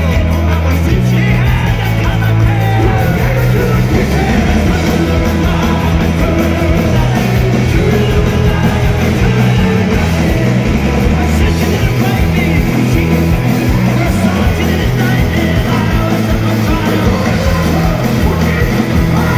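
Celtic punk band playing live and loud: electric guitar, bass guitar and drums driving a steady beat, with a singer shouting the vocals into a microphone.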